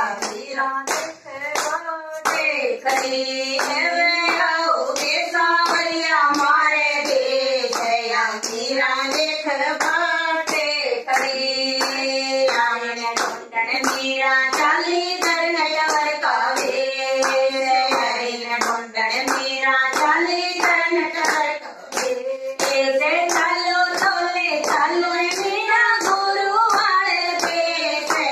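Women singing a devotional bhajan together without instruments, clapping their hands in steady time with the song.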